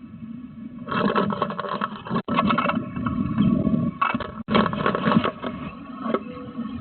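Close scraping and scrabbling against the wooden nest box, loud and irregular for several seconds, over a faint steady electrical hum from the camera.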